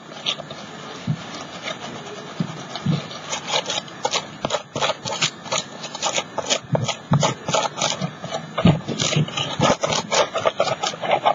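A hand rubbing glued collage paper down onto a canvas in quick, repeated scratchy strokes. The strokes are sparse at first and become rapid and busier from about three seconds in.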